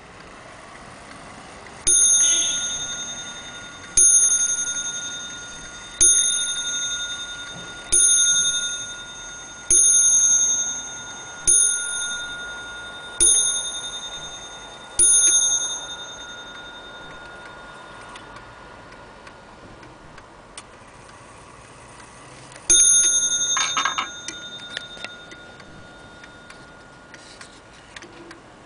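Vintage 1950s Swedish pendulum wall clock striking the hour, eight ringing strokes on its gong about two seconds apart, each fading away. Later comes one more single stroke with a brief metallic rattle after it, with the movement's faint ticking underneath.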